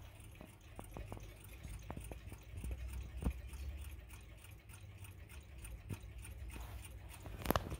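Several vintage 1960s–70s mechanical table and alarm clocks ticking at once, out of step with one another, with a sharper click near the end.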